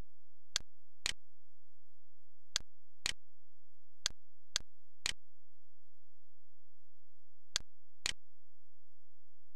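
Computer mouse button clicks: nine sharp clicks, mostly in pairs about half a second apart, over a steady low electrical hum.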